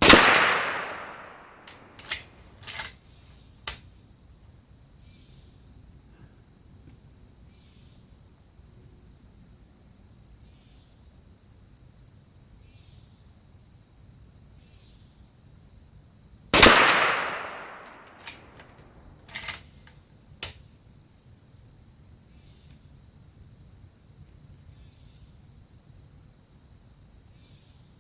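Two rifle shots from a Winchester Model 1894 lever-action in .30 WCF (.30-30), about sixteen seconds apart, each echoing away over a second or so. Each shot is followed by a few sharp metallic clicks as the lever is worked to eject the case and chamber the next round.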